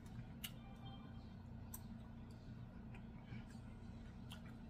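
Quiet room tone with a steady low hum and a few faint, short clicks spaced a second or more apart.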